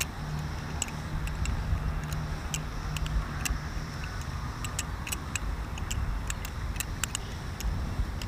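Balisong (butterfly knife) being flipped through a twist rollover loop, its handles clicking against the blade: a quick, irregular run of sharp clicks over a low steady rumble.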